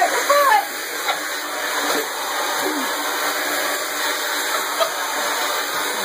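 Hand-held hair dryer blowing steadily, with a small dog giving a few short yelps and growls at it, mostly in the first second.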